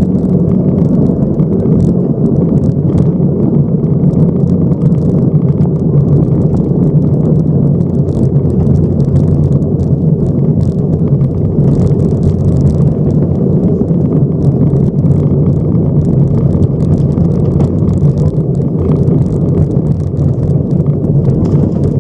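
Subaru rally car's flat-four engine running hard, heard from inside the cabin as a steady loud drone, with gravel ticking and pinging against the car's underside throughout.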